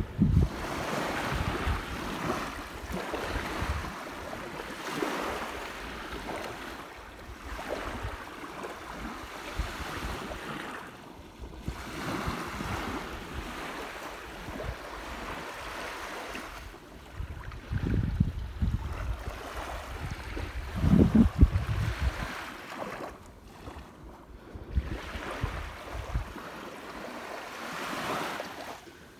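Waves washing onto a sandy beach, with gusts of wind buffeting the microphone, strongest about two-thirds of the way in.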